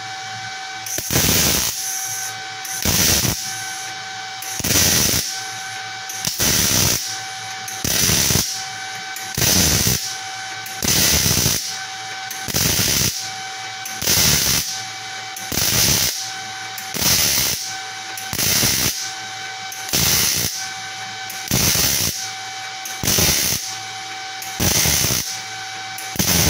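MIG/MAG welding arc with 0.9 mm wire set around 130 A, struck again and again to lay a row of tack welds: about sixteen short bursts of crackling arc noise, each under a second long, about one every second and a half, with a faint steady tone from the machine between them.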